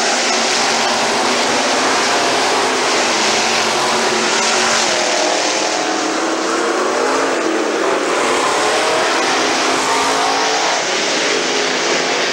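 Several street stock race cars' engines running hard in a race, a steady loud drone with engine notes rising and falling as the cars go by.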